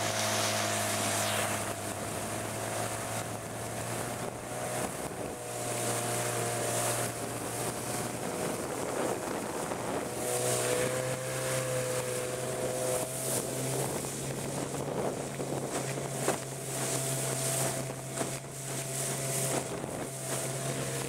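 Evinrude Sportwin 9.5 two-cylinder two-stroke outboard motor running steadily on a small boat, its note rising slightly about halfway through. Gusty wind noise on the microphone.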